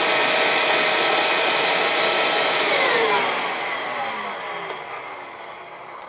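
Hoover Air Cordless Series 3.0 upright vacuum running steadily, then switched off about three seconds in, its motor spinning down with a falling whine that fades away.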